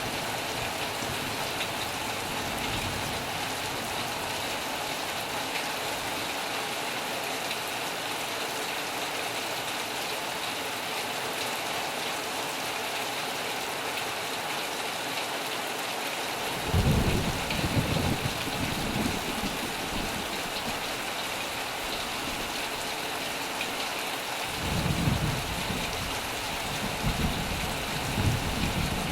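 Steady heavy rain. Thunder rumbles twice, first about two-thirds of the way in and again near the end.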